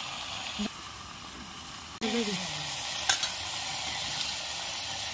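Small shrimp sizzling as they fry in an iron kadhai: a steady sizzle that gets louder after about two seconds, with a single sharp click about three seconds in.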